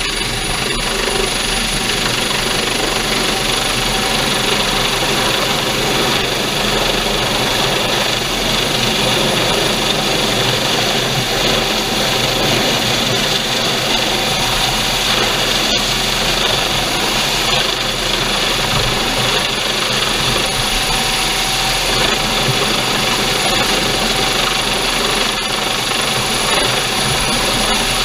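Coast Guard Dolphin helicopter hovering low overhead: steady, loud rotor and turbine noise with a high whine, and rotor downwash buffeting the microphone.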